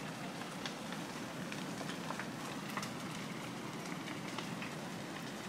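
Large open wood fire burning: a steady noise with many scattered sharp crackles and pops.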